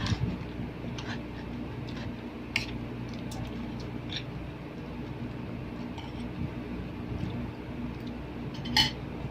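Spoon and fork tapping and scraping on plates and bowls now and then while eating, a handful of short clinks, the sharpest near the end, over a steady low hum.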